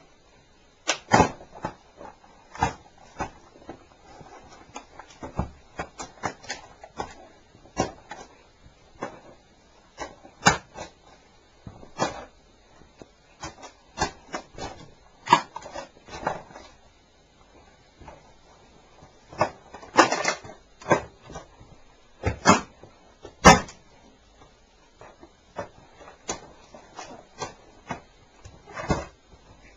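Portable cassette recorder being stomped flat under motocross boots: irregular sharp cracks and knocks of its plastic casing breaking, the loudest a cluster of hits about 20 to 24 seconds in.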